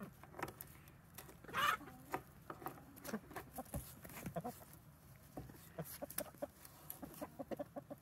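Chickens clucking softly now and then, with scattered small clicks and taps close by.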